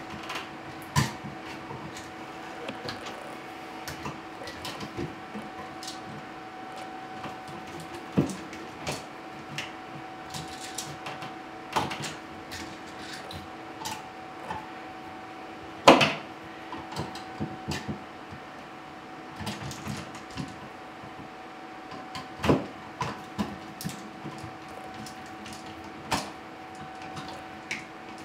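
Hand work with a screwdriver on an old-work electrical box set into a drywall cutout: irregular clicks, taps and scrapes with a few sharper knocks, over a steady hum.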